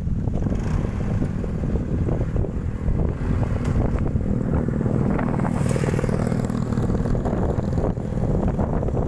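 Strong wind blowing across the microphone, a heavy low rumble.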